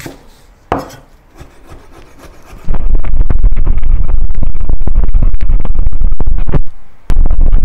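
Chinese cleaver chopping Chinese chives on a wooden chopping board. A couple of single cuts come first, then about three seconds in a loud, fast, continuous run of chopping starts. It stops briefly near the end and then starts again.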